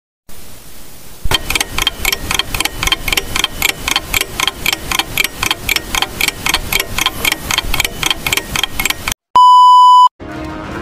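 Edited intro sound effects: a fast, even ticking of about six ticks a second. Near the end comes a short, loud, steady test-tone beep, which breaks into a brief hiss of static.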